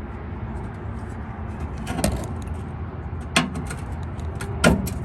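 Plastic wiring-harness clips snapping out of a pickup truck's frame: three sharp clicks about a second and a half apart, over a steady low rumble.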